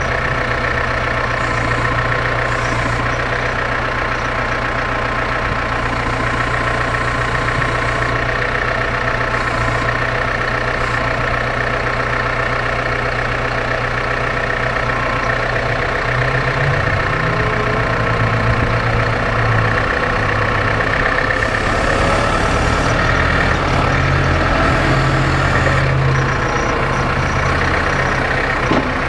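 Massey Ferguson 5600-series tractor's diesel engine running steadily, heard close up from the loader; from about sixteen seconds in it grows louder and heavier for about ten seconds as the tractor works.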